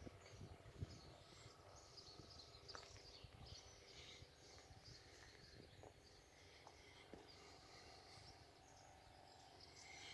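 Near silence: faint outdoor ambience with small birds chirping now and then, high and short, and a low rumble in the first couple of seconds.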